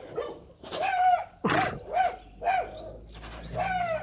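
Small dog giving a run of short, high-pitched barks about every half second, one louder and sharper burst about halfway through.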